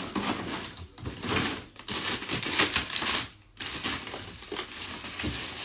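Packages in a fridge rustling and crinkling as they are rummaged through and shifted about, with irregular rattles and knocks, and a brief pause about three and a half seconds in.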